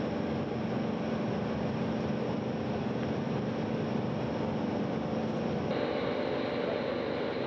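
Steady mechanical hum and noise with several held tones. The pitch of the tones shifts suddenly about six seconds in.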